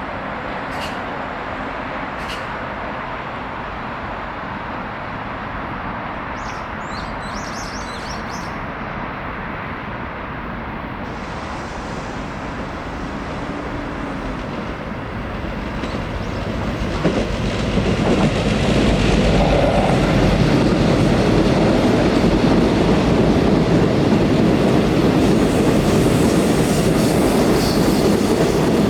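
Seoul Metro Line 4 Dawonsys electric train running on the rails, with a few light clicks early on; the noise grows much louder about 17 seconds in and stays loud.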